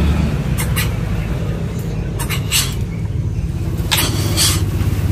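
Scissors snipping snails over a plastic basin: several sharp clicks, mostly in pairs, over a steady low rumble.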